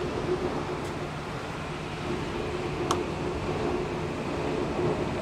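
Steady hum and rumble of a JR Shikoku diesel railcar heard from inside the passenger car, with one sharp click about three seconds in.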